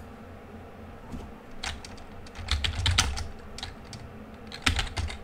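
Computer keyboard being typed on: short runs of keystrokes, a bunch in the middle and another near the end.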